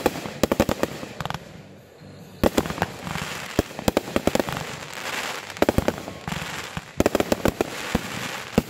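Aerial fireworks bursting in rapid volleys: many sharp bangs in quick clusters, with a hiss of burning stars between them.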